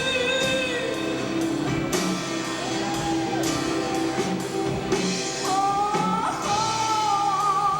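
Live rock band with singing, guitar and drums.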